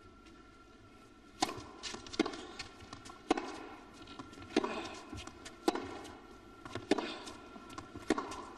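Tennis ball being hit back and forth in a rally: sharp racquet strikes and ball bounces, each with a short echo, coming roughly once a second. They start about a second and a half in, after a hush.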